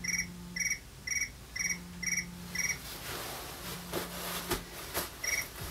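Cricket chirping at a steady pace of about two short chirps a second. About halfway through the chirps pause while a hiss with a few sharp clicks takes over, and they resume near the end.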